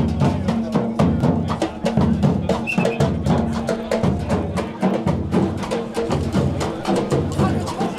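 A drum group playing a fast, steady beat on large slung bass drums, with sharp, clicky hits on smaller drums or a wood block over it.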